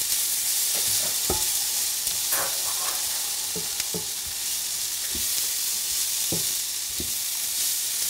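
Sliced onions frying in butter in a pan, a steady sizzle, with several light clinks and knocks of utensils scattered through it.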